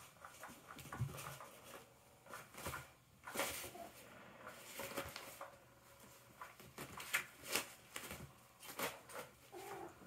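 Kittens playing on carpet and a nylon toy cover: irregular scratching, rustling and patter of small paws.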